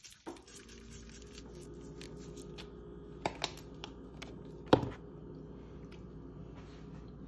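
Dry seasoning shaken from a shaker jar over raw beef in a metal pot: light clicks and taps of the shaker and falling granules, with a steady low hum behind. A sharp knock comes about two-thirds of the way through.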